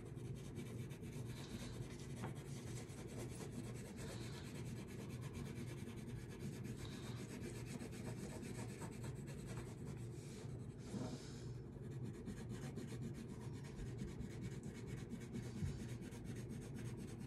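Wax crayon rubbed rapidly back and forth on paper, a steady scratchy run of many quick strokes, filling in a large area of sky with blue.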